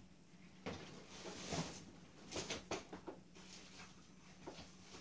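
Faint scattered rustles and light clicks of craft supplies being rummaged through off-camera, over a faint steady room hum.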